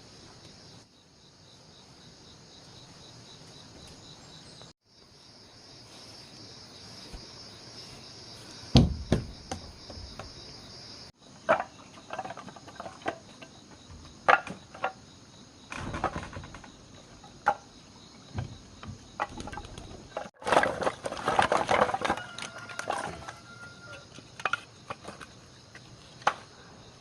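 Insects chirring steadily, with scattered knocks and clattering from about nine seconds in, busiest around twenty-one to twenty-three seconds.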